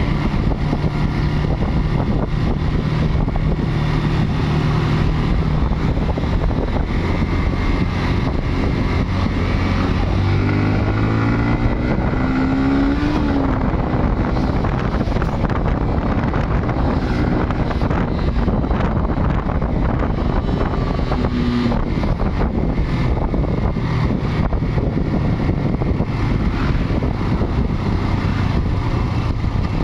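Motorcycle engine running under way, heard from the rider's seat with wind rushing over the microphone. The engine note rises as it accelerates about ten to thirteen seconds in, then settles back.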